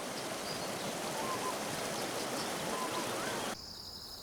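Steady rushing-water ambience with a few faint short bird chirps. A little over three seconds in it cuts abruptly to a quieter background of a steady high insect drone, like crickets, with a faint gliding bird call.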